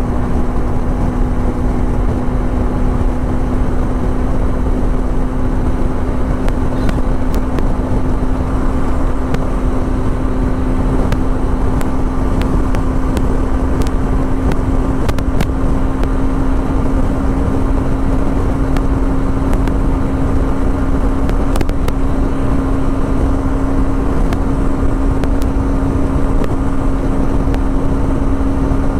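Motorcycle engine running steadily at cruising speed on the open highway, one even engine note held without change, over a heavy rush of wind and road noise.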